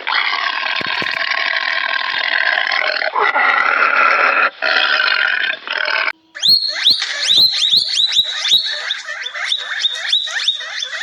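Harsh, raspy animal calls with short breaks for about six seconds. After a sudden cut comes a quick run of sharp, high, downward-sliding chirps, several a second.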